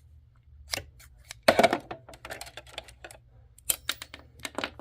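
Scissors snipping thread: a few separate sharp clicks, the loudest about one and a half seconds in.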